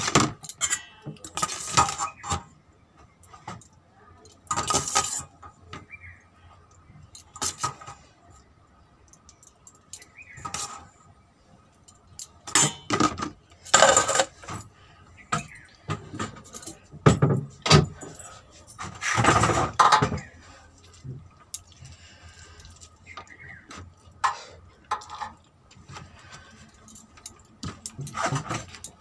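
Eating rice and vegetable curry by hand: irregular rustles and small knocks as fingers mix and scoop food on a plate, with bangles clinking together on the moving wrist. The sounds come in uneven bursts, the loudest about halfway through and again around two-thirds of the way in.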